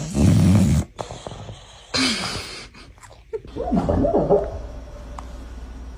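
A dog's snoring and snorting breaths, in a few separate loud bursts.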